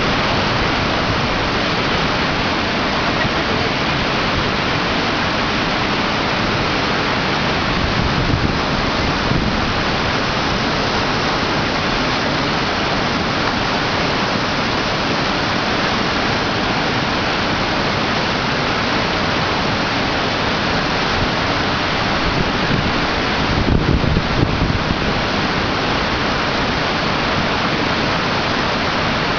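Waterfall dropping in three tiers and breaking on rock, a loud, steady rush of water. Two brief low rumbles rise over it, about eight seconds in and again near twenty-four seconds.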